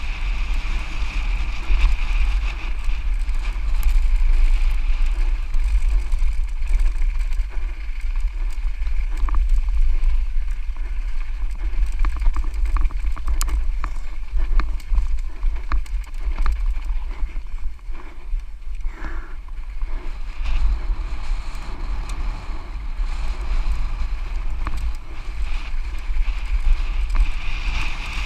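Wind buffeting the microphone of a camera riding along on a mountain bike descending fast, with frequent short clicks and rattles from the bike over rough trail.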